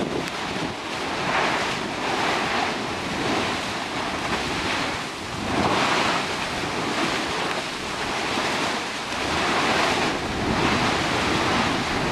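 Molten lava churning and spattering in a volcanic vent: a rushing, surf-like noise that swells and fades every second or two.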